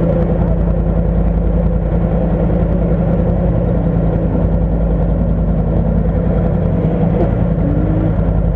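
Quad bike (ATV) engine running steadily close by, at an even low speed.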